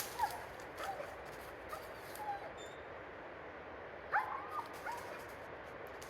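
A dog whining with short, high yips and whimpers, several in a row, loudest in a cluster about four seconds in, over a steady background hiss.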